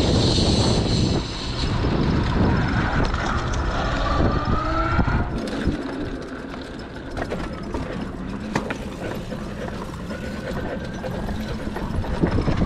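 Electric e-bike hub motor whining under power, its pitch rising as the bike speeds up, over wind rumble on the microphone and tyre noise, with scattered clicks and rattles. The rumble drops about halfway through and the whine rises again near the end.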